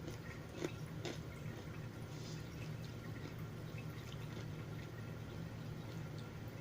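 Wet chewing and small mouth clicks of someone eating spicy instant noodles with kimchi, over a steady low hum.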